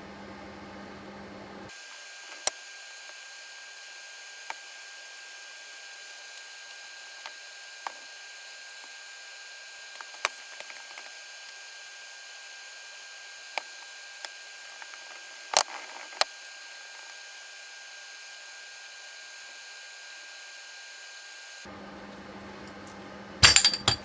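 Scattered sharp metallic clicks and clinks of hand tools and small metal parts, spaced a few seconds apart over a steady hiss, with a quick cluster of louder knocks near the end.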